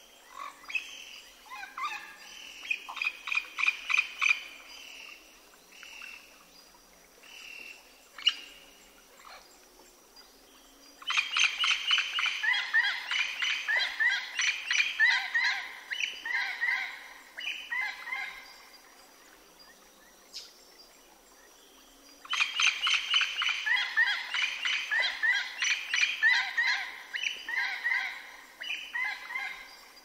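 Wild parrots calling in bouts of rapid, repeated notes. There are three bouts, and the two loudest start about eleven and twenty-two seconds in.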